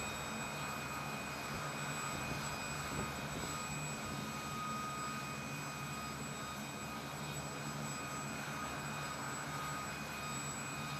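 CH-47 Chinook helicopter's turbines idling on the ground: a steady whine over a low hum.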